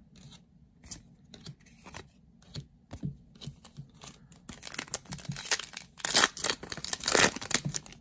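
Foil Yu-Gi-Oh booster pack wrapper being crinkled and torn open, in a dense run of crackling rips in the second half, after a few light clicks of trading cards being handled.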